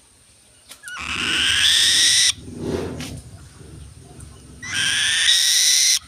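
Young pet raptor giving two long, loud screeching calls, each rising slightly in pitch, about a second and a half apart, with a softer, lower sound between them.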